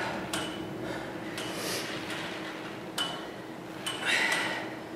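Quiet room tone with a steady hum, broken by a few short clicks and two short breaths from people exercising.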